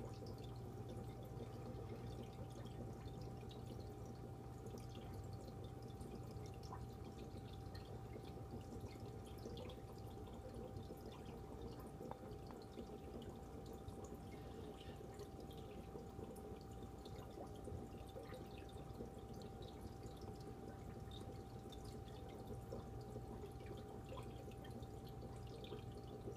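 Aquarium filter trickling and dripping water, faint and steady, with small scattered drips over a constant hum.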